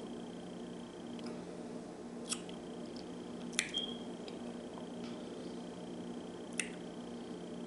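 Three short, sharp clicks, about two, three and a half, and six and a half seconds in, over a steady low room hum and a faint, thin high whine.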